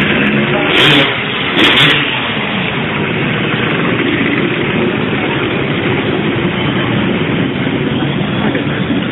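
Motorcycle engines running and revving over a loud, continuous din, with two short louder bursts about one and two seconds in.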